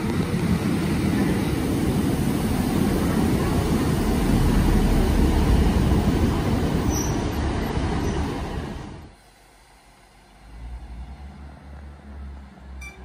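Class 150 Sprinter diesel multiple unit passing close beneath, engine and wheels loud and building to a peak. About nine seconds in the sound cuts away to a Class 158 diesel unit standing at a platform, its engine idling with a low, pulsing throb.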